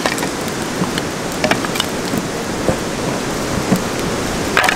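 Wood fire crackling under a wire grill grate: a steady hiss with scattered sharp pops, and a cluster of clicks near the end.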